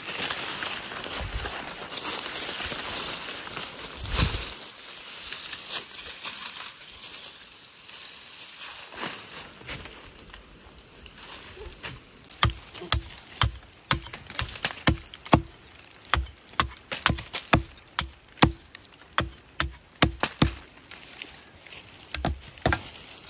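Rustling and crackling for the first few seconds. From about halfway a steady run of sharp knocks follows, about two a second, each with a short ringing tone, like a tool striking wood.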